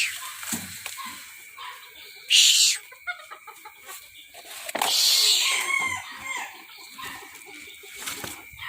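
Bantam roosters calling and squawking, with two loud harsh squawks about two and a half and five seconds in.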